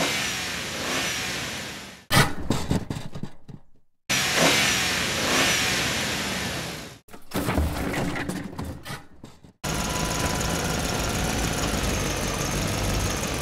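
Dubbed-in monster truck engine sound effects: two revving passes, each followed by a run of sharp knocks, every clip cutting off abruptly. From about ten seconds in a steady, even drone takes over.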